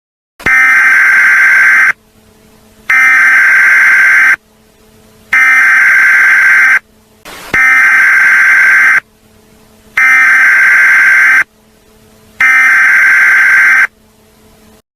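Emergency Alert System digital header tones: six loud, buzzing electronic bursts, each about a second and a half long, with about a second of quiet between them. These are the coded data bursts that open or close an emergency alert broadcast.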